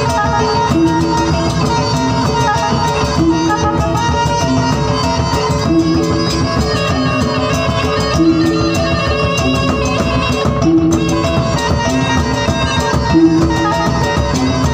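Gordang sambilan, the Mandailing ensemble of nine large tuned drums beaten with sticks, playing a fast, dense drum pattern together with struck hanging gongs whose tones ring over it. The pattern repeats about every two and a half seconds.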